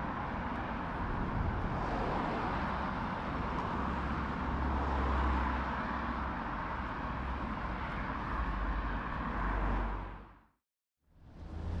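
Steady road-vehicle noise with a deep rumble and hiss. About ten and a half seconds in it fades out to silence and fades back up.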